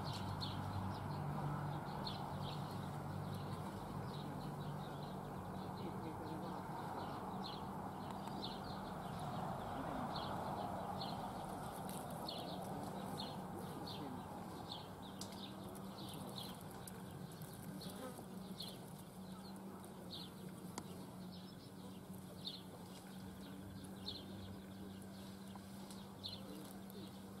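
Short high chirps repeated about once a second, over a steady low hum and soft outdoor noise that slowly fades.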